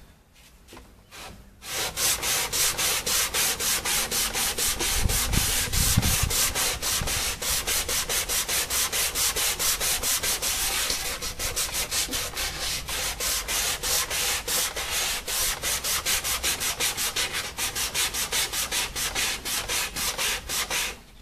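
Sandpaper on a hand sanding block rubbed back and forth over a wooden coffee table top in quick, even strokes, about three a second. The strokes start about two seconds in and stop just before the end.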